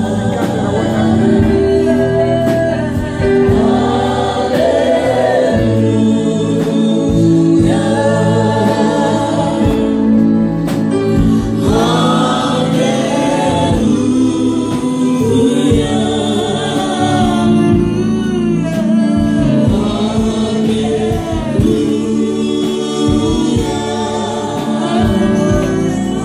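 Church worship team singing a gospel song into microphones, several voices together, over amplified band accompaniment with held bass notes and a steady beat.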